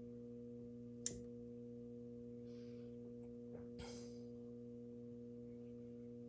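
Steady low electrical hum, a few fixed tones from a mains-frequency buzz, with one sharp click about a second in and faint brief rustles a few seconds later.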